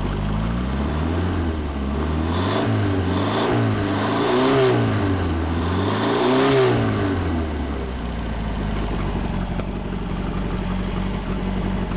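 Gasoline V8 engine from a Bobcat skid-steer conversion, out of the machine, revved up and down about four times, then settling back to a steady idle about two-thirds of the way through.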